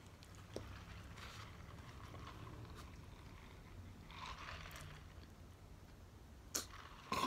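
Quiet room with faint rustling, then two short sharp clicks near the end.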